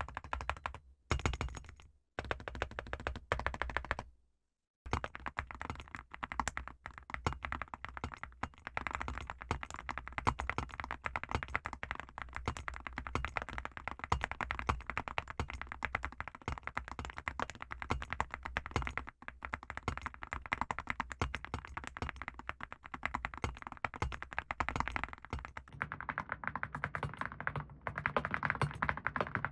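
Continuous fast typing on a mechanical keyboard fitted with full metal keycaps: a dense stream of key clacks, broken by two short gaps in the first five seconds.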